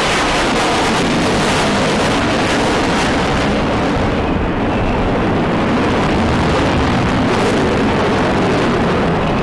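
Jet noise from an F-22 Raptor's twin Pratt & Whitney F119 afterburning turbofans during a flight demonstration: a loud, steady, rushing jet sound. The high hiss thins for a moment about halfway through, then returns.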